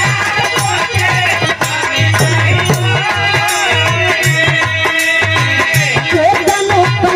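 Bhojpuri folk song played live: a steady, regular drum beat with jingling, rattle-like percussion, a melody line, and male accompanists singing along into microphones.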